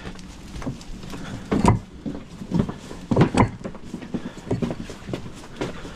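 Concrete pavers clacking and knocking as they are handled and set down, a handful of short irregular knocks about a second apart, two close together about three seconds in.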